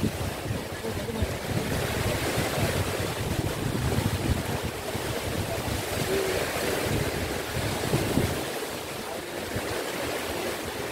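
Wind buffeting the microphone over the steady wash of sea surf. The low buffeting eases about eight seconds in.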